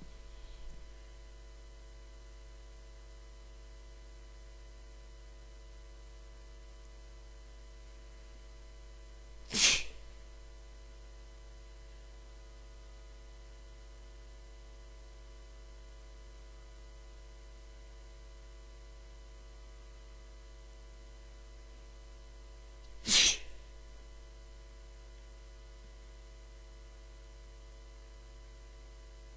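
A person sneezing twice, sharp and loud, once about ten seconds in and again about thirteen seconds later; the sneezes are deliberately induced. A faint steady electrical hum runs underneath.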